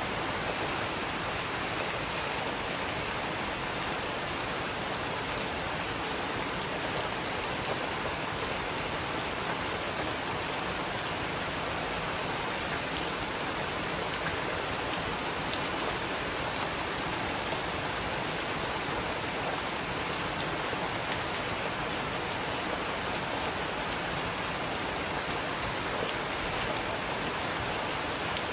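Steady rain, with a few sharp pops now and then from a crackling wood fire.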